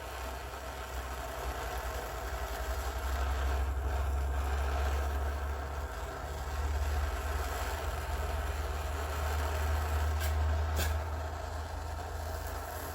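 Handheld gas torch flame running steadily with a low, rough rumble while it heats the thin sheet-metal radiator seam for soldering. Two short ticks sound about ten seconds in.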